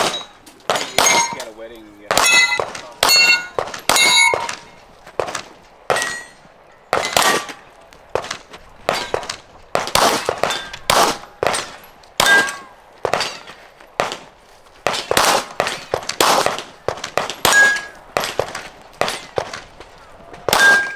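A rapid string of gunshots, about one to two a second, with steel target plates ringing with a clang or ding after the hits.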